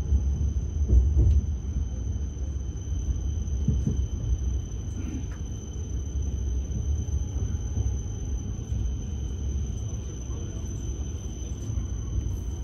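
Train-station platform ambience: a steady low rumble, loudest about a second in, with a thin steady high tone above it.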